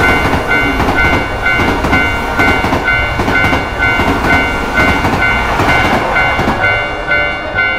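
Japanese level-crossing alarm ringing, two tones pulsing about twice a second, while a train runs past with its wheels clattering over the rails.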